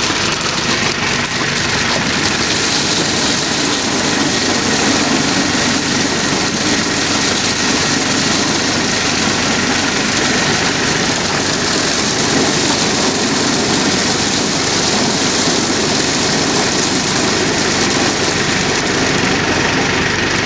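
Corn cob harvester running steadily, its engine and machinery making a loud, even mechanical noise.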